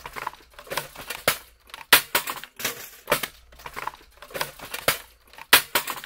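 Hands rummaging through a plastic laundry basket of plates, mugs and small household objects: a run of irregular clatters, knocks and scrapes.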